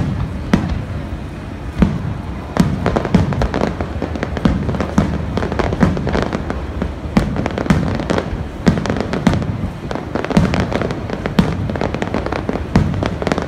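Aerial fireworks bursting in rapid succession: sharp bangs several times a second over a steady low rumble.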